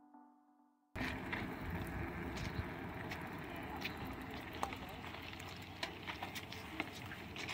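Faint outdoor background of a group of people talking, with scattered light clicks, coming in suddenly about a second in after a moment of silence.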